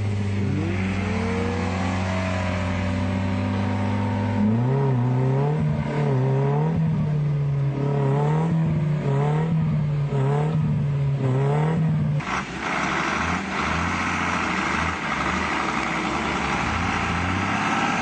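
Off-road 4x4 engines working in mud, over three clips. First comes a steady engine note with a second engine rising in pitch. From about four seconds in, an engine revs up and down about once a second, as a stuck jeep rocks in the mud. After an abrupt cut near the end, a rougher engine runs hard under a broad rushing noise.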